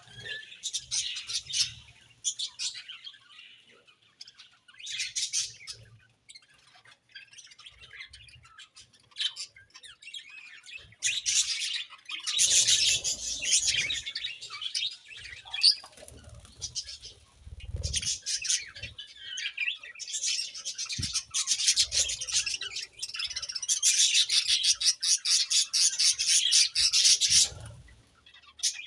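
A colony of budgerigars chirping and warbling, many birds at once in rapid trills, swelling in loud spells and dropping to scattered calls in between.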